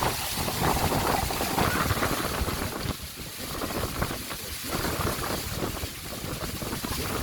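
Wind buffeting the microphone over a steady rushing roar of water.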